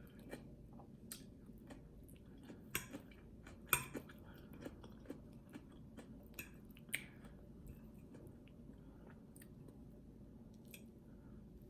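A woman chewing food close to the microphone, with sharp wet mouth clicks and smacks, about ten in the first seven seconds and only a few after that.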